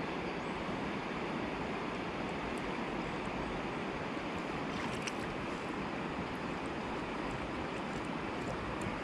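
Steady rush of a shallow river running over stones, with a few faint ticks about five seconds in.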